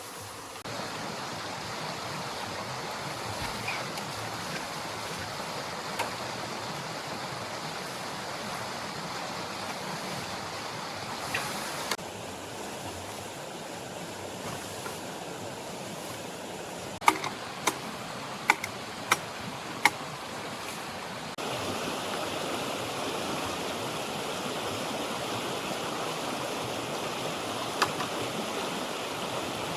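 Running water of a stream rushing steadily, its level stepping up or down abruptly a few times. A quick series of sharp clicks or knocks stands out about two-thirds of the way through.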